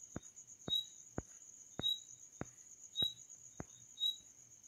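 A cricket chirping faintly, short high chirps about once a second, with soft regular clicks about twice a second and a steady high whine behind.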